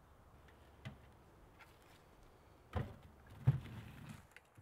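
Metal knocks from a small steel wood stove as its firebox door is worked and a split of firewood is pushed in: two sharp knocks, the second the loudest, then a short scraping rattle of wood over the coals.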